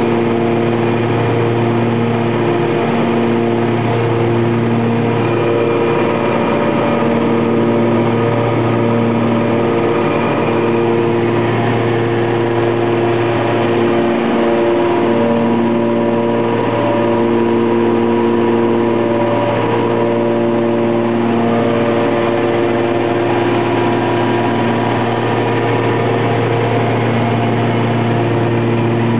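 Twin turbocharged Continental six-cylinder engines and propellers of a Cessna 414A running, a steady loud drone heard inside the cockpit. Its tones swell and fade in a slow pulsing beat.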